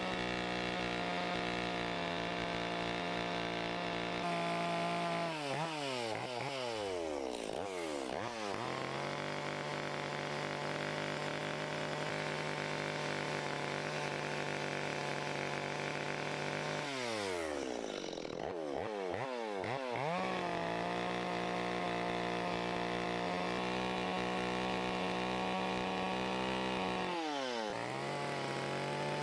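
Chainsaw running at high revs while carving wood. The engine note drops and climbs back up three times: about five seconds in, about seventeen seconds in and near the end.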